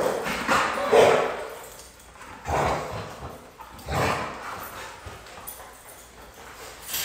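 Dogs barking in play, about four short barks spread over the first four seconds.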